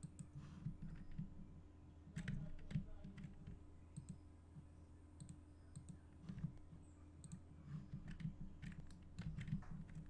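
Scattered computer mouse clicks and keyboard keystrokes, irregular and spaced out, over a low steady hum.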